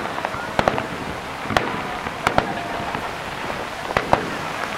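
Fireworks shells bursting in a rapid, uneven series of sharp bangs, some in quick pairs, over a steady crackling hiss.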